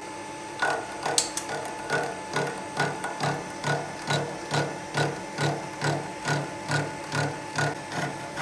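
Sheldon Vernon horizontal milling machine's arbor-mounted cutter biting into a metal bar from about half a second in, with an even beat of heavy cuts about twice a second over the steady hum of the machine. The owner takes the uneven cutting to mean the cutter is a little off center or the arbor is bent.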